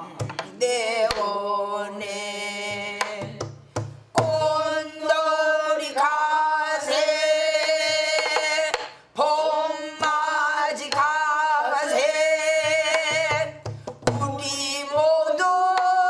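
A woman singing a Korean folk-style song with a wide, wavering vibrato, accompanying herself on a buk barrel drum struck with a stick and the palm. Deep drum strokes come in clusters about a quarter of the way in and again near the end, with lighter strokes between.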